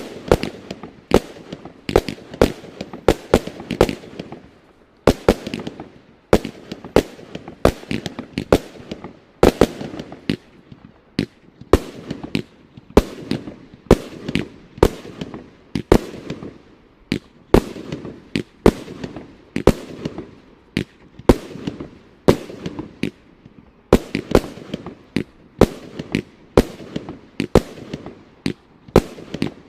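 A 66-shot mixed-effects fireworks cake firing: a steady run of sharp shot and burst bangs, about one to two a second, with a noisy rush between them.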